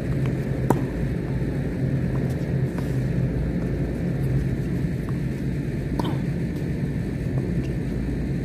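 Tennis rally on a hard court: one sharp racket-on-ball hit a little under a second in, a few fainter knocks and a short squeak later, over a steady low rumble.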